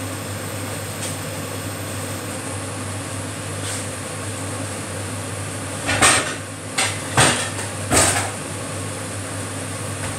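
Ceramic dinner plates knocking and clattering against each other as they are taken out and handled: four sharp clinks within about two seconds, over a steady background hum.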